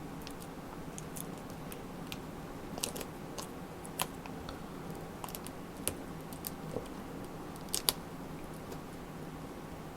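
Light, irregular clicks and taps of plastic from handling a laptop display panel while its video cable connector is being slid into the socket, the sharpest about four, six and eight seconds in, over a steady low hum.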